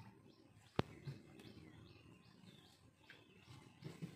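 Small birds chirping faintly over and over, with one sharp click a little under a second in.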